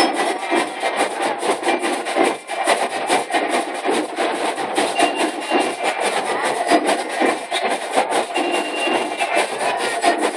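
Marching drum-and-lyre band playing: fast, steady snare drumming over bass drums, with a few bell-lyre notes ringing through near the end.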